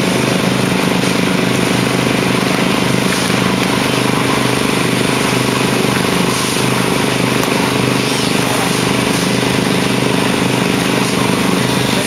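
A small engine running steadily at a constant speed, with no change in pitch or level.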